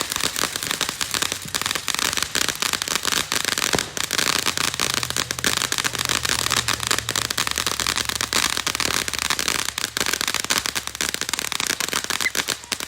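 Firecrackers going off in a dense, rapid, unbroken run of sharp pops. A faint low hum sits under them through the middle of the stretch.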